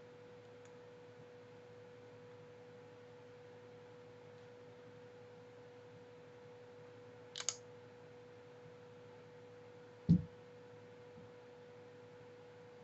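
Faint steady hum on a single held tone, with a short sharp double click, like a computer mouse click, about seven seconds in and a louder dull thump about ten seconds in.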